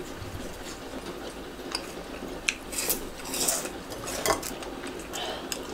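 Chopsticks clinking and scraping against a stainless steel frying pan of tteokbokki: a handful of short clicks and scrapes, mostly in the second half.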